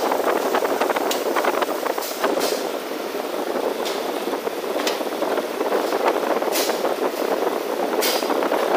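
Industrial stainless-steel bakery mixer running with a steady mechanical whirr, broken by a few short hissing bursts.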